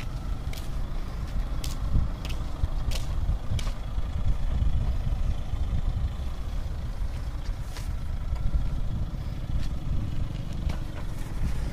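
Mahindra Thar SUV's engine running at low speed as the vehicle turns and creeps forward, a steady low rumble with a few sharp ticks scattered through it.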